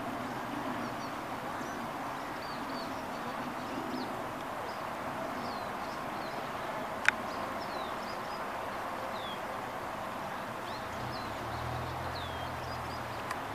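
Outdoor ambience with small birds chirping: short, high, downward-sweeping chirps scattered throughout over a steady hiss. One sharp click about seven seconds in, and a low hum near the end.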